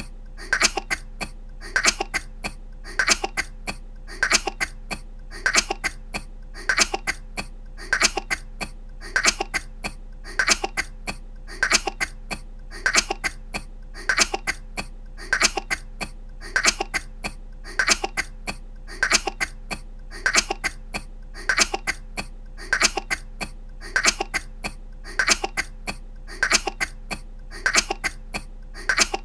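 A woman's short coughs, two or three at a time, repeated about every 1.2 seconds in an unchanging loop.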